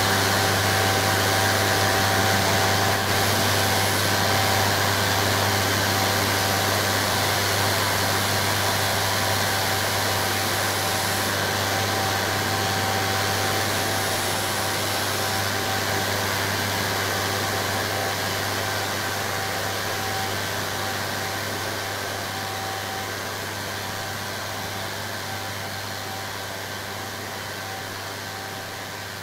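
Harsh noise music: a dense wall of distorted static and hiss over a steady low drone, from a cheap handheld radio run through a Boss octave pedal and a small Korg synth through a Boss MT-2 Metal Zone distortion pedal. It fades slowly toward the end.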